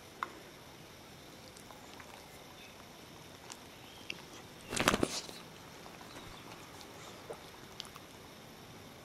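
A beagle making a few faint licking clicks, then one short, loud, noisy snort through its nose about five seconds in.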